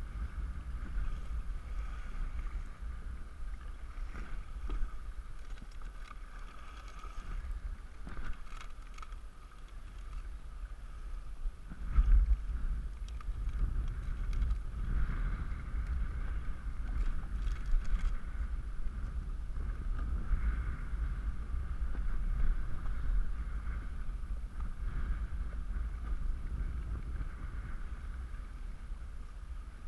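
Wind rumbling on the camera microphone over water lapping and splashing against a Hobie Outback pedal kayak's hull on choppy water, with a louder gust about twelve seconds in.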